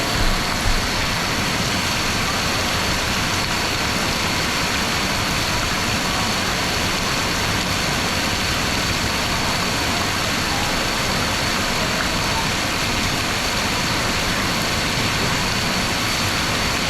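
Steady rushing of falling and splashing water, an even, unbroken wash of noise.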